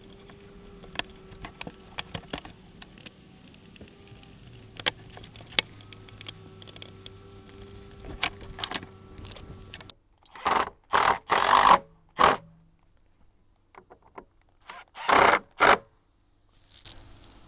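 Light clicks and ticks of a hand tool and small screws as T25 screws are taken out of the plastic camera piece on a Jeep JL tailgate. About ten seconds in come several loud, short noisy bursts as the plastic piece is worked loose, the last two close together.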